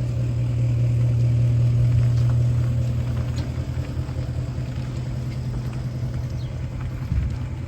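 Pickup truck engine running slowly in drive, in four-wheel-drive low, as it tows a second truck forward on a chain. A steady low hum that swells slightly over the first couple of seconds, then eases off.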